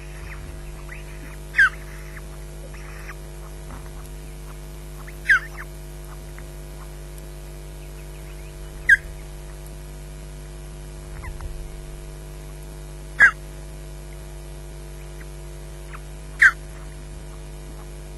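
Osprey at the nest calling: five loud, short notes that fall in pitch, one every three to four seconds, over a steady low electrical hum.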